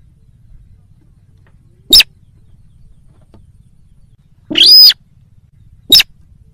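Slaty-breasted rail (sintar) lure-call recording: three loud, sharp, high calls, the first about two seconds in, the second about four and a half seconds in and longer with a lower, rougher start, the third about six seconds in.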